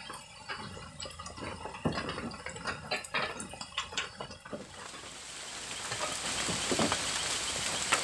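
A spatula scraping and clinking in a wok as fried rice is stirred over a wood fire. About five seconds in, a steady hiss of rain builds up and takes over.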